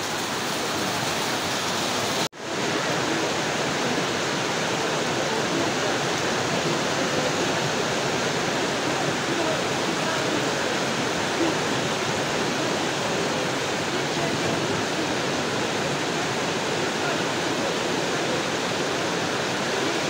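Steady heavy rain, a dense even hiss, broken for an instant about two seconds in.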